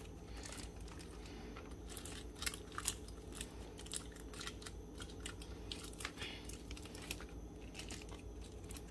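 Aluminium foil crinkling in scattered faint crackles as hands press and twist the ends of a foil packet to seal it tight.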